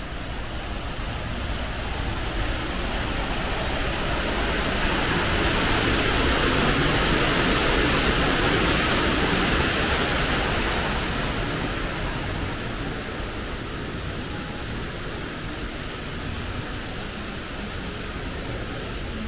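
Rushing water, like a waterfall or stream, as a steady hiss. It grows louder over the first few seconds, is loudest around the middle, then fades back down.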